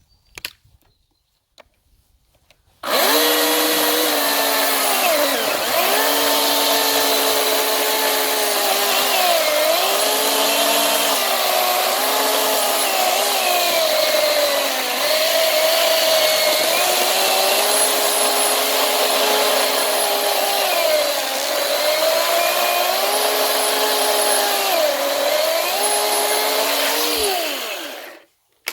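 Ryobi OCS1830 18-volt brushless battery chainsaw starting about three seconds in and cutting into a thick log, its pitch dipping and recovering several times as the chain loads up in the wood, then stopping suddenly near the end.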